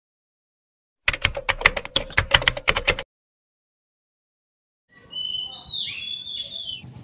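About a dozen quick typing clicks, like typewriter keys, over two seconds, then they stop. A couple of seconds later birds chirp in short gliding notes over a low background rumble.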